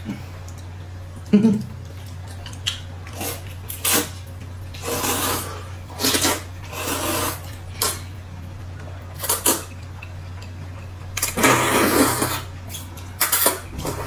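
Two people slurping noodles: a string of noisy slurps, each up to about a second long, the longest near the end, over a steady low hum.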